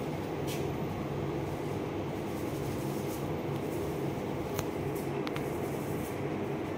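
Steady low machine hum with a few faint light clicks.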